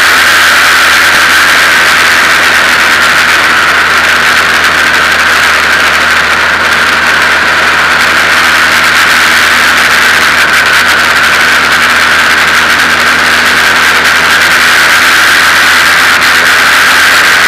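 Formula 2000 open-wheel race car's engine running loud and steady, heard from on board the car.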